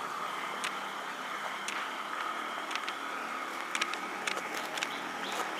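Street ambience: a steady hum of motor traffic in the distance, with scattered light clicks.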